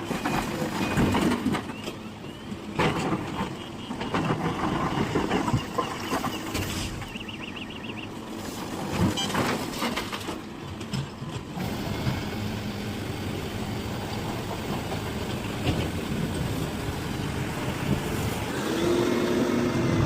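Heavy diesel mining machinery running steadily, with irregular loud clanks and knocks over the first half.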